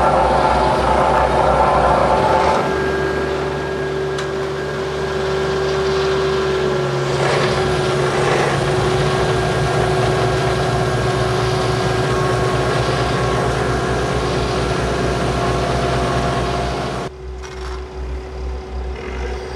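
Heavy diesel engine running steadily with a low pulsing throb and a constant hum; the tone shifts a couple of times, and the level drops suddenly near the end.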